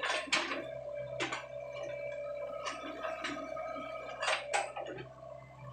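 Sany SY55C mini excavator's engine running steadily while its bucket digs in waterlogged mud, with wet slurping and splashing noises from the mud and water every second or so.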